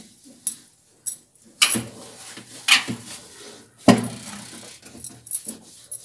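Bangles on a wrist clinking, and a hand knocking against the inside of a microwave oven cavity, while a wet wipe rubs its inner walls. There are four or five sharp clinks, the loudest about four seconds in, with soft rubbing between them.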